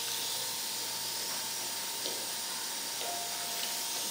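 Steady hiss of a dental surgical suction tip drawing air in the mouth, with a faint click of a metal instrument about two seconds in.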